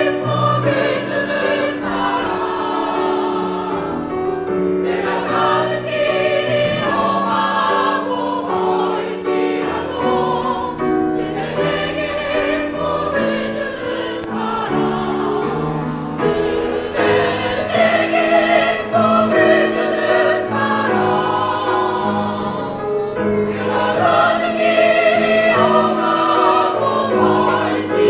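A choir singing with piano accompaniment, several voices holding and moving through sung phrases with short breaths between them.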